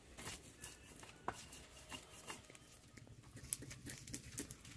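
Stone pestle grinding spices into a paste in a stone mortar (Indonesian ulekan and cobek): scattered light knocks and soft scraping of stone on stone.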